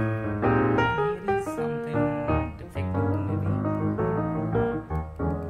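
Background music led by piano, a run of changing notes.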